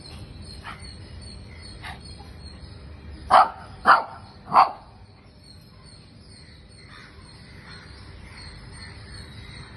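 A dog giving three short, loud play barks in quick succession near the middle, after two fainter barks earlier on.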